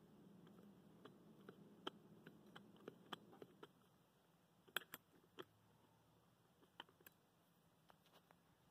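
Faint, irregular light clicks and taps of a metal tool and parts being handled at a small Stirling engine's stuck piston, the loudest about five seconds in. A faint low hum underneath drops away about four seconds in.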